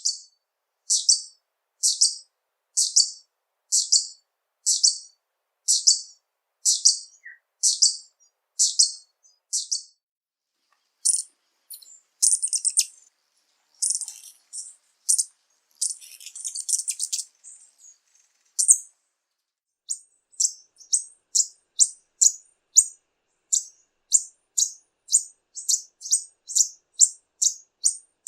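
Violetear hummingbird singing: high, short chip notes repeated about once a second, then a denser jumble of notes, then faster repeated notes about two a second.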